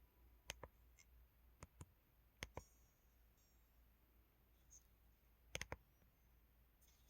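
Buttons on an LG-SH130 mobile phone clicking: about four quick double clicks, spread over several seconds against near silence.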